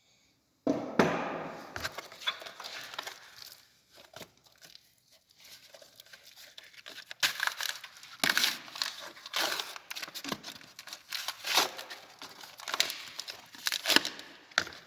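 Packaging crinkling and tearing in irregular bursts of handling noise, starting about a second in, as a new part is unwrapped by hand.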